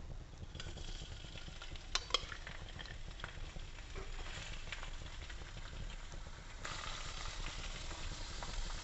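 Hot oil in a stainless steel wok sizzling as stink bean (yongchak) seeds are tipped in from a bowl. The sizzle starts about half a second in and gets louder near the end as the rest of the seeds go in, with a couple of sharp clicks about two seconds in.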